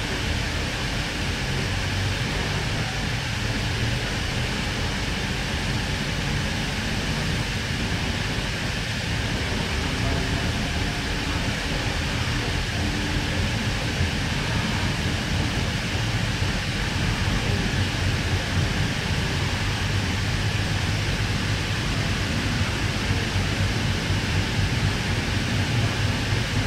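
Interior running noise of a K-set double-deck electric train under way: a steady rumble of wheels on rail with a low hum that grows slightly louder in the second half.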